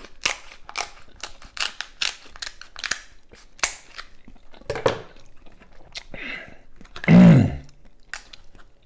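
King crab leg shell being cracked and snapped apart by hand, a quick run of sharp cracks and clicks over the first few seconds, with close chewing. About seven seconds in comes a short, loud hum of the voice.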